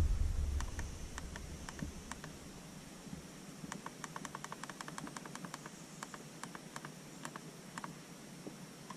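Light clicks of the buttons on a ProChrono chronograph being pressed to scroll through its stored shot velocities. The clicks come singly at first, then in a quick even run of several a second, then singly again.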